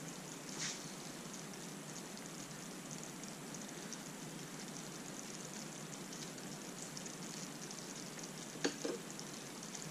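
Thick curry sauce simmering in a stainless steel pan, a faint steady bubbling hiss, with two soft clicks, one about a second in and one near the end.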